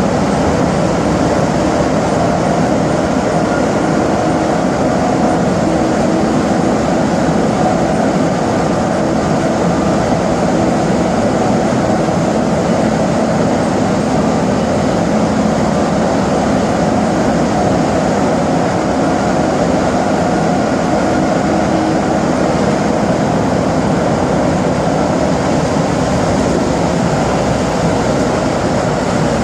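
Montreal metro train running at speed, heard from inside the car: a steady rumble of its rubber tyres on the track with the hum of its Jeumont traction equipment held on faint, even tones throughout.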